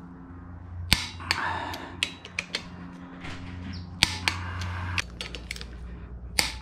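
Click-type torque wrench tightening flywheel bolts, breaking over with a sharp click three times (about a second in, at four seconds and near the end) as each bolt reaches the 40 ft-lb setting, with lighter clicks of the wrench and socket between.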